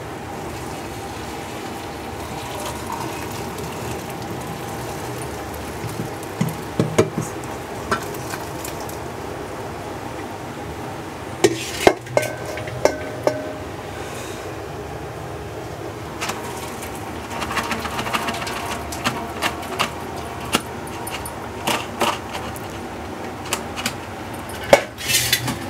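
Scattered clinks and knocks of a pot and utensils against a metal mesh strainer as boiled vermicelli is drained and shaken, over a steady background noise.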